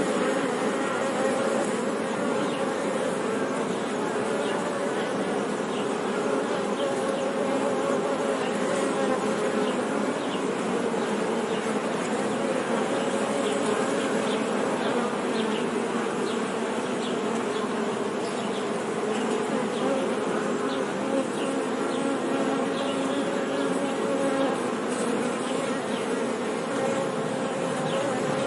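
Many honey bees buzzing together: a dense, steady hum of many overlapping pitches.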